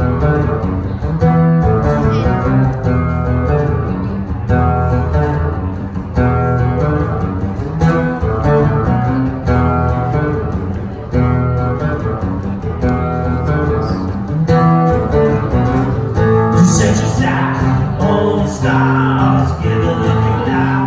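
Solo acoustic guitar playing a song's opening chords, amplified through the stage PA. A man's singing voice comes in about three-quarters of the way through, over the guitar.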